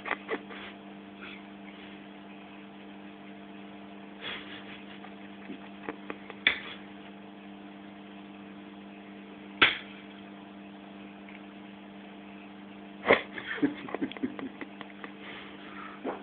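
Cutlery clinking against a plate a handful of times during a meal, over a steady electrical hum.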